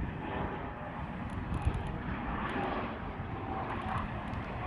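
Gulfstream G550 business jet's twin Rolls-Royce BR710 turbofans on arrival to land: steady jet engine noise that slowly grows louder.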